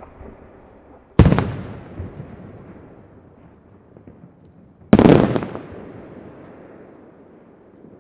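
Two aerial firework shells bursting, a little over one second in and again about five seconds in. Each is a sharp, loud bang followed by a long rolling echo that fades away.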